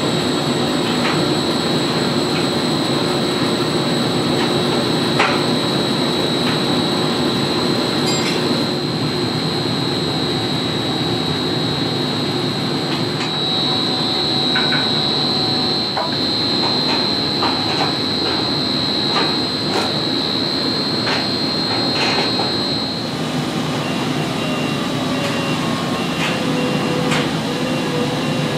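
Construction-site machinery noise: a steady drone with a high whine that cuts off about three-quarters of the way through, and scattered sharp metallic knocks like hammering.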